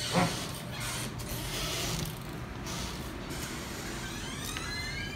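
A metal door being opened by its lever handle: a clack with a creak falling in pitch just after the start, then shuffling movement, and a rising squeak near the end.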